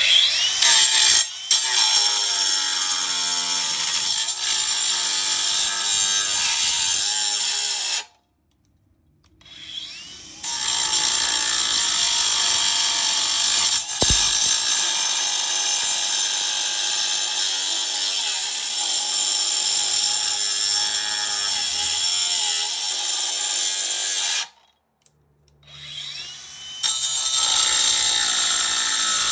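Ryobi angle grinder running with a steady high whine as it cuts into a compressor's metal shell. It stops about 8 seconds in and again near 24 seconds, each time for about two seconds, then starts up again. A sharp click is heard about 14 seconds in.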